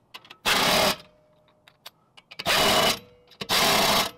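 Cordless impact wrench running lug nuts down onto the wheel studs in three short bursts of about half a second each, with faint clicks of the socket between bursts.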